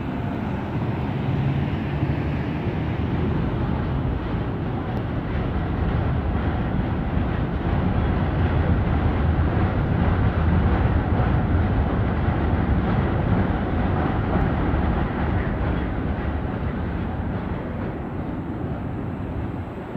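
Trams running on street tracks with road traffic: a steady low rumble that grows louder toward the middle and eases off near the end.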